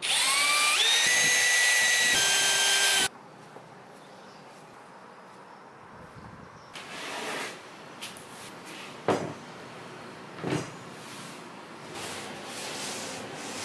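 Cordless drill running for about three seconds with a twist bit boring a pilot hole into a plywood strip, its whine climbing in pitch in steps as the trigger is squeezed, then stopping abruptly. Fainter scraping and two short knocks follow.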